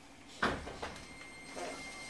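Inside a JR 205 series commuter car standing still: one sharp thump about half a second in, from the passenger sliding doors, over a quiet cabin background.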